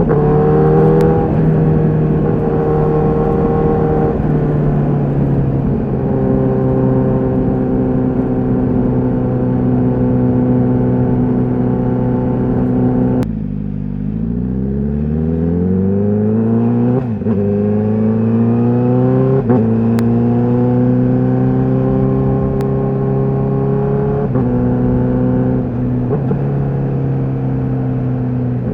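Honda CBR1000RR-R SP's inline-four engine through its stock exhaust, running under way. It mostly holds a steady note with small steps in pitch at gear changes. About halfway through the throttle shuts and the revs drop sharply, then the engine pulls up again in rising runs broken by quick gear changes.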